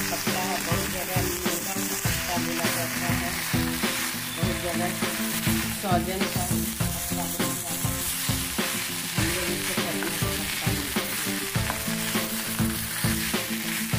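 Drumstick (moringa) leaves sizzling as they fry in a steel karahi, while a slotted metal spatula stirs and scrapes against the pan, about two strokes a second.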